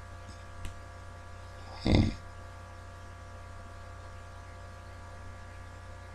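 A single short snore about two seconds in from a deep sleeper, over a steady background hum.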